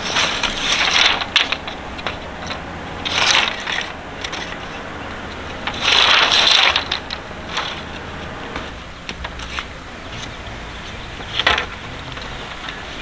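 Bamboo poles being pulled from a pile and laid on dry dirt ground: four short scraping, rustling bursts with light clattering knocks, the longest about six seconds in.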